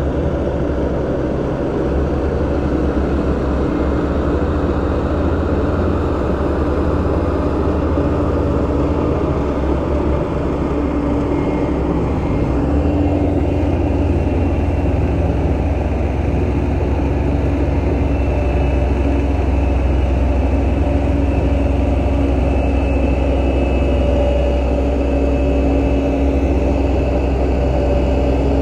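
Diesel engine of heavy earthmoving machinery running steadily, a deep rumble with a steady engine tone; a faint high whine joins about halfway through.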